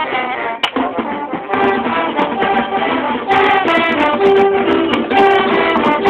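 Marching band playing its field show: brass holding sustained chords and a melody line over a few sharp percussion strokes.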